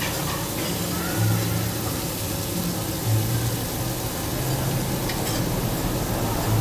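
Beef and rolled meat sizzling on a flat steel teppanyaki griddle, an even hiss over a steady low hum, with a couple of faint clicks.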